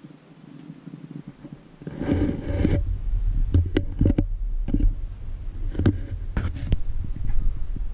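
Handling noise from the camera as it is moved. A low rumble sets in about two seconds in with a rustling burst, followed by a scatter of sharp knocks and clicks.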